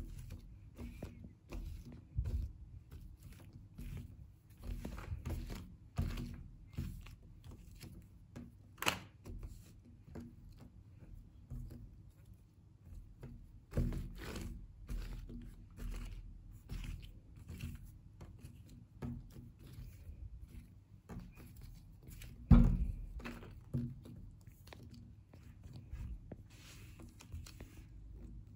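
Hands rolling and twisting plasticine on a stone countertop: irregular soft thumps and taps of hands and clay against the worktop. There is a sharper click about nine seconds in and the loudest thump about three-quarters through.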